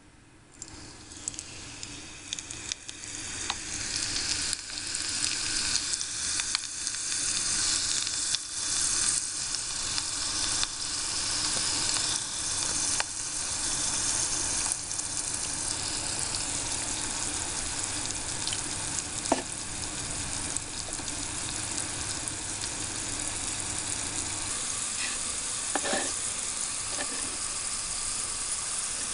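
Tiny batch of potato strips deep-frying in hot oil in a miniature ceramic pan, sizzling and crackling. The sizzle swells over the first several seconds as the strips go in, then runs steady, with a few light clicks around the middle and near the end.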